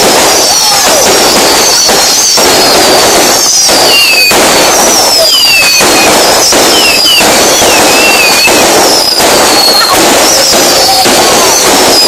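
Fireworks going off, loud: a dense, continuous crackle of bangs and pops with many high whistles that glide down in pitch.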